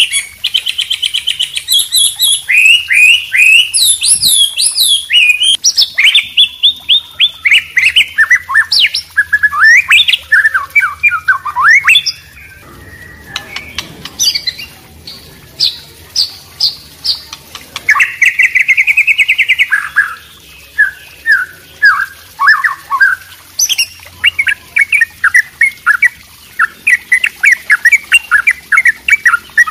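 Songbirds singing in a fast, varied stream of chirps, trills and whistled glides, with a short lull about halfway through.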